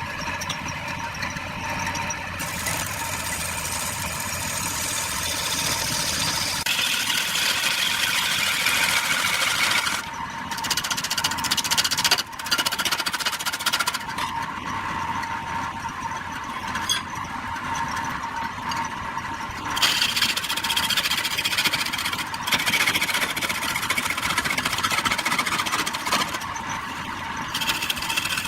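Wood lathe running with a turning tool cutting the spinning wood, a steady mechanical hum under a hissing, squealing cut that changes abruptly every few seconds.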